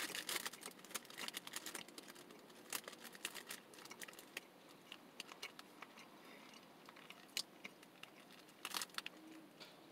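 Faint chewing of a bite of frosted Pop-Tart pastry: scattered soft mouth clicks and crunches, closer together in the first second and sparse after.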